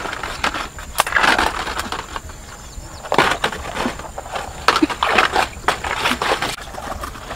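Lotus stalks snapping and leaves rustling as the plants are picked by hand: several sharp cracks among bursts of rustling.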